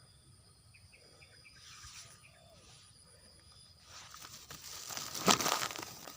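Faint low cooing early on, then a loud burst of rustling and flapping that builds about four seconds in and peaks near the end, which fits a spotted dove struggling in a snare.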